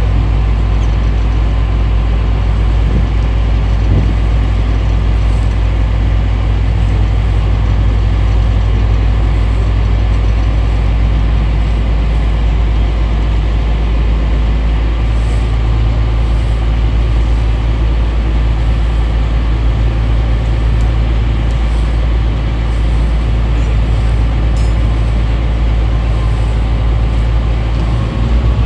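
Strong wind buffeting a phone's microphone on a moving boat: a loud, steady low rumble with a hiss over it.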